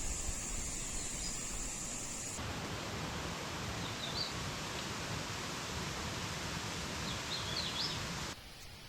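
Steady outdoor rushing noise in woodland, with a few short, faint bird chirps about four seconds in and again near seven and a half seconds. The noise changes abruptly a couple of seconds in and drops sharply near the end.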